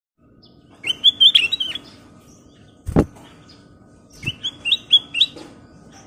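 Caged black-crested bulbul (kutilang emas) singing two short phrases of bright, quick whistled notes about three seconds apart. A sharp thump sounds between the phrases, and a softer one comes at the start of the second phrase.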